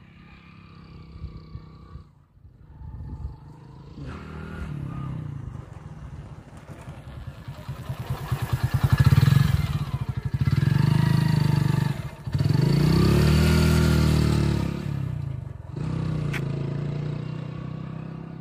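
Hero iSmart single-cylinder commuter motorcycle approaching, passing close by and riding away. The engine is loudest around the middle, its pitch rising and then falling as it goes past, and it fades near the end.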